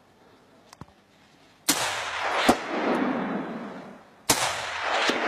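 Hunting gun shots fired down a mountainside at wild boar. A shot goes off about one and a half seconds in and another near the end, each followed by a long echo rolling back off the slopes, with a sharp crack between them.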